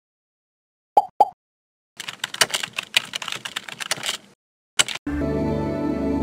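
Two short pitched blips, then a quick run of keyboard typing clicks for about two seconds, a single click, and from about five seconds in a steady low droning tone: intro sound effects for text typed into a search bar.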